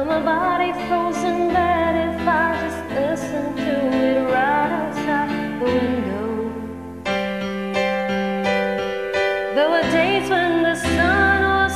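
Karaoke singing of a slow pop ballad over a piano-led backing track, the voice sliding between held notes above chords that change every second or two.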